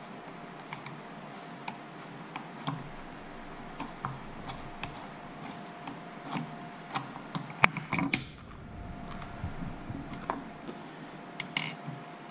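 A screwdriver working screws in a plastic motorcycle turn-signal housing: irregular small clicks and taps of the tool and parts, with a brief louder clatter about eight seconds in.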